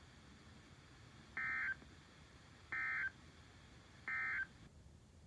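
EAS/SAME end-of-message data tones from a NOAA Weather Radio broadcast: three short, identical warbling digital bursts about a second and a half apart, over faint radio hiss. They mark the end of the warning message.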